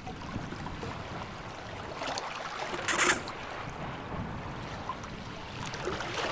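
Steady rushing noise like surf or running water, with a short, loud hissing burst about three seconds in.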